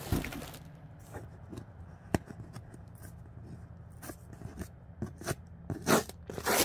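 Fingernails scratching and picking at clear packing tape on a cardboard box, a string of small sharp clicks and scrapes, with a louder scrape about six seconds in.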